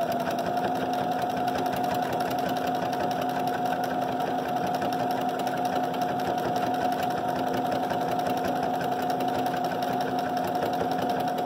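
Brother SC9500 sewing machine stitching at a steady, even speed, a constant high whine over a fast, even needle rhythm, stopping suddenly at the end. It runs smoothly, its insides freshly cleared of the lint balls that had been clogging and locking up the motor.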